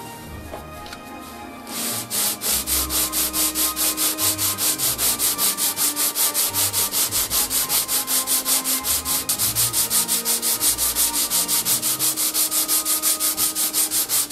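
Wooden Japanese kanna plane rubbed back and forth on sandpaper, fast even strokes about four a second, starting about two seconds in and stopping suddenly near the end: lapping the plane's sole flat.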